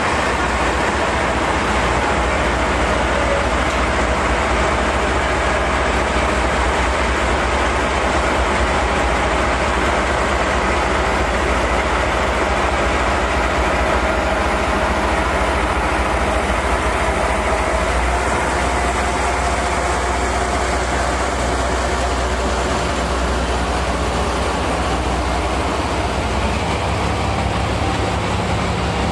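JNR Class DE10 diesel locomotive running steadily as it slowly pulls a train of 50-series passenger coaches out of the station.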